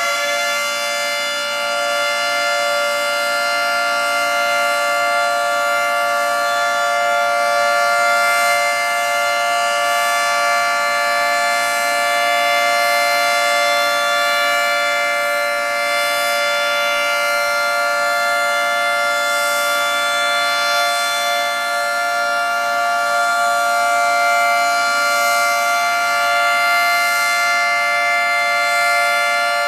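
Federal Signal 2T22 dual-tone rotating tornado siren running at full speed on its test, holding a steady two-note chord at one pitch, its loudness swelling slightly every few seconds.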